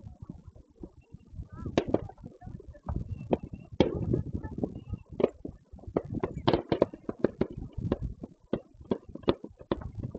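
Fireworks going off in quick, irregular succession: a steady run of sharp bangs and pops with low rumbling between them.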